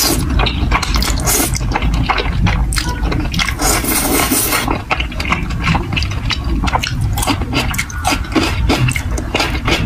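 Close-miked eating of thick noodles in spicy sauce: wet slurping and chewing with many small sticky mouth clicks, and a longer slurp about four seconds in.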